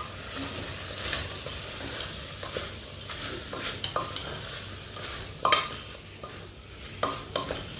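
Chicken and vegetables sautéing in oil in a pressure cooker while being stirred with a spatula: a steady sizzle with scattered scrapes and knocks of the spatula against the pot, the sharpest about five and a half seconds in.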